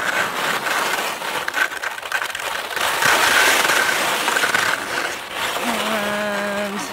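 Skis scraping and chattering over crusty spring snow and through heather: a loud, rough, continuous hiss. Near the end a voice holds a short steady note.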